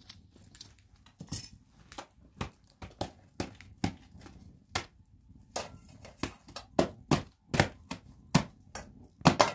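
Hands slapping and patting a ball of bread dough, a run of sharp slaps about two to three a second that grow louder in the second half.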